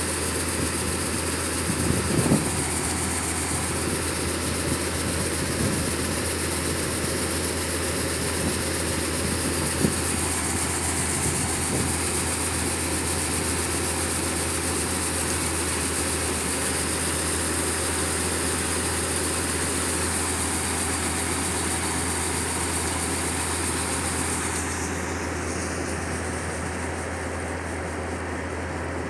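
Crop Tiger combine harvester running steadily at working speed as it unloads threshed soybeans, with a low engine drone and a high whine. A few small knocks occur early on. About four seconds before the end the sound turns duller and a little quieter.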